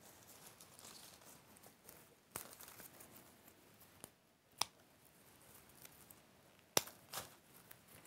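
Florist's scissors snipping berry stems: three sharp snips about two seconds apart, with faint rustling of foliage being handled between them.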